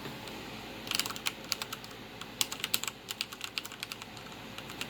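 Keys of a Bejoy mechanical keyboard with linear red switches (Cherry MX Red copies) being typed on: a quick, irregular run of light, quiet key clicks starting about a second in.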